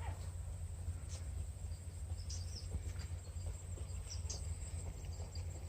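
Outdoor ambience: insects making a steady high buzz, a few short bird chirps, and a constant low rumble underneath.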